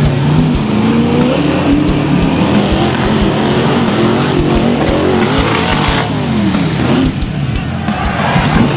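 Rock bouncer buggy's engine revving hard at full throttle, its pitch rising and falling again and again as the buggy bounces up a dirt hill, with music underneath.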